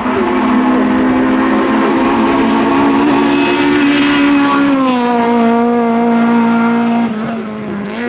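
Honda Civic hatchback rally car's four-cylinder engine running hard at high revs as it climbs past, a steady high-pitched note that dips in pitch about five seconds in and grows quieter near the end.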